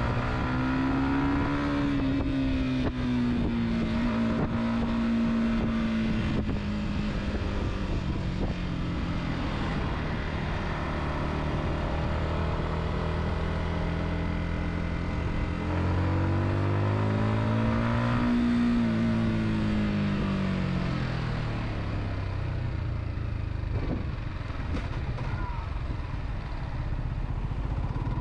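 Car engine running on the move, its pitch climbing and then easing back twice, once near the start and again about two thirds of the way through, over steady road noise.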